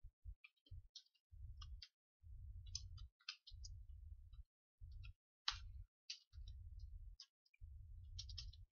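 Faint computer keyboard typing: irregular key clicks, some quick runs and some single taps. Underneath, a low hum cuts in and out.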